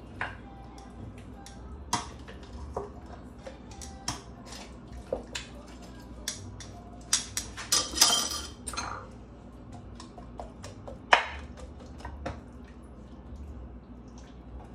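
Scattered clinks and taps of a utensil against a glass baking dish as a raw duck is worked over, with a denser flurry of clatter about eight seconds in and a sharp knock about eleven seconds in.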